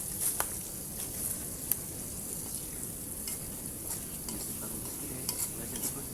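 A fire burning in the rain: a steady sizzling hiss with scattered sharp crackles and ticks.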